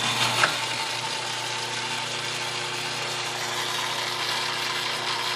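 Myford ML7 metal lathe running steadily under power, its belt-driven spindle turning with a steady hum and whir. There is a brief click about half a second in.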